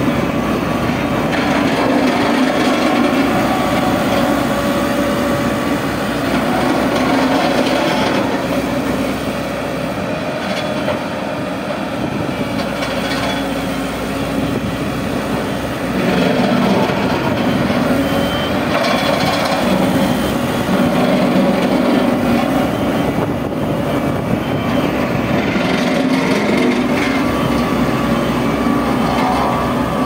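Ammann ASC 100 single-drum roller compactor's diesel engine running steadily as the machine drives over loose dirt, a little quieter for a few seconds midway.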